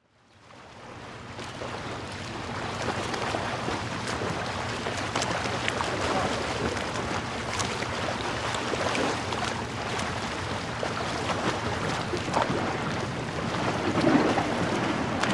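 Open-water ambience of water movement and wind noise on the microphone, fading in over the first couple of seconds, with scattered small splashes or clicks and a low steady hum underneath.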